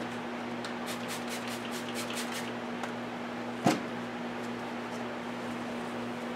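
Dry-erase marker drawing on a whiteboard: a quick run of short scratchy strokes in the first half, then a single sharp knock about two-thirds of the way through, over a steady low hum.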